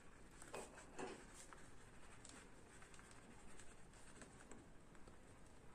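Faint scratching of a pen writing on ruled notebook paper, with a couple of slightly louder strokes about half a second and a second in.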